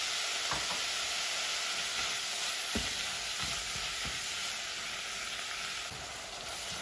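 Minced beef and onion sizzling in hot oil in a non-stick pot, with a silicone spoon stirring and scraping it, giving a few soft knocks against the pot. The meat is browning after salt and spices have been added.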